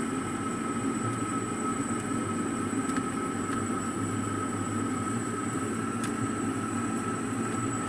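Refrigerator compressor running after a refrigerant gas recharge: a steady mechanical hum and whir with a thin, high steady whine, starting abruptly.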